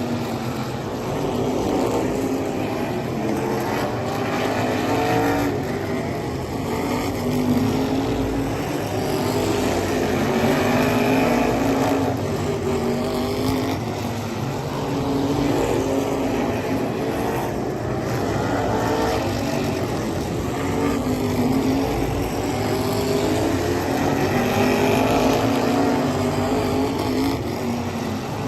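Race car engines running around a short oval track, the pitch climbing as they accelerate and dropping as they lift, over and over every few seconds.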